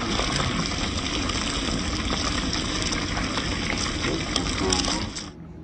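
Pieces of sierra mackerel frying in a pan of hot oil: a loud, dense sizzle full of small crackles and pops, which cuts off suddenly near the end.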